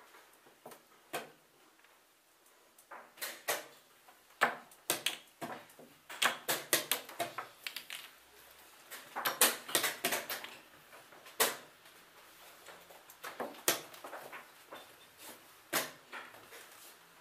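Wooden chess pieces set down on a wooden board and digital chess clock buttons pressed: sharp, short clicks and knocks, scattered singly and in quick clusters, the thickest cluster a little past halfway.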